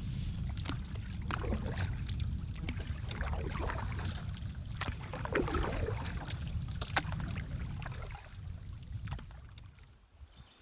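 Canoe being paddled: paddle strokes splashing in the water, with occasional sharp knocks, over a steady low wind rumble on the microphone. It fades away near the end.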